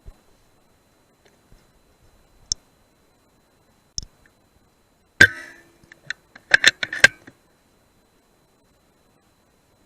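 A single sharp rifle shot about five seconds in, followed a second later by a quick run of sharp clicks and knocks. A few faint ticks come before it.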